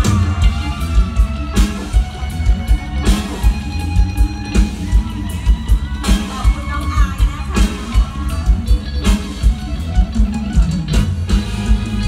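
Isan mor lam band music: an instrumental passage with a steady, fast kick-drum beat under plucked guitar lines.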